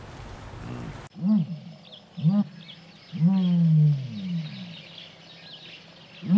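An animal calling repeatedly: short calls that rise and fall in pitch, about one a second, and one longer call that falls away, over faint high chirping.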